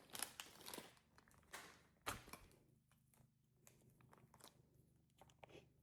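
Faint crinkling and rustling of a plastic slime packet being handled, in a few short crackles, the clearest in the first second and around two seconds in.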